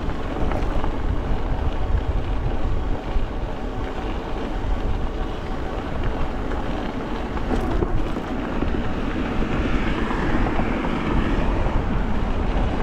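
Steady wind rush on the microphone with tyre rolling noise from an e-bike riding along a trail: a deep, even rush that holds at one level throughout.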